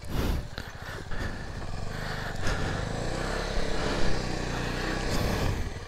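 Single-cylinder motorcycle engine running at fairly steady revs, its pitch wavering slightly.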